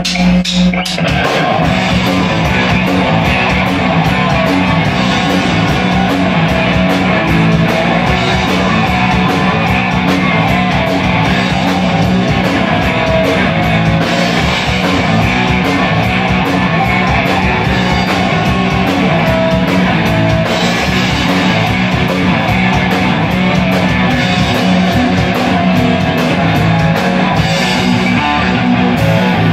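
Live rock band playing at full volume: electric guitars, bass guitar and a drum kit.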